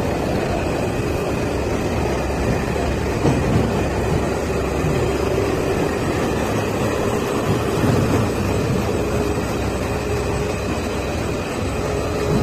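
Guowei dual-roll slitting machine running steadily: a dense, even mechanical rumble with a faint steady hum.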